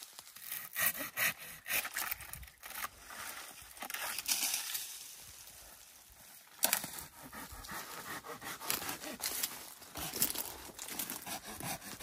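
Dry pine branches, twigs and needles rustling, scraping and crackling irregularly as someone pushes through and works among a pine tree's lower branches.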